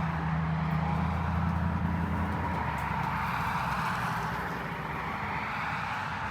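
A car engine running steadily with a low hum that fades away about two and a half seconds in, over a constant rush of road noise.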